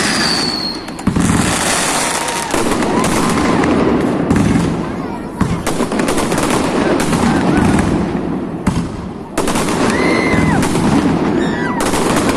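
Aerial fireworks going off in quick succession: a near-continuous run of bangs and crackling with a low rumble, and a few whistling shells gliding in pitch.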